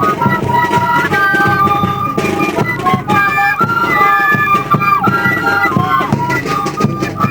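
Music: a flute-like wind melody of held notes over a busy rhythmic accompaniment.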